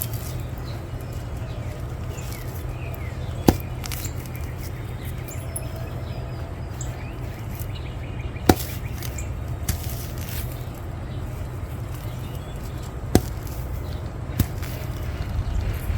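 Weed-pulling tool being worked through garden weeds: four sharp clacks a few seconds apart over a steady low rumble, with faint bird chirps.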